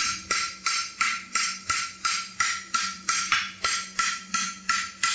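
Farrier's hand hammer striking red-hot horseshoe bar stock on an anvil in a steady rhythm, about three blows a second, with the anvil ringing between blows.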